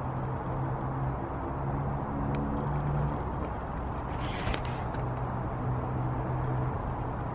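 A motor vehicle engine running with a low hum over a steady background rush, with a brief scratchy rustle a little over four seconds in.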